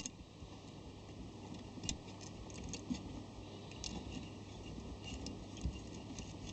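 Faint, sparse metallic clicks and taps of small washers and nuts being handled and fitted onto terminal studs, a few single clicks spread through the stretch.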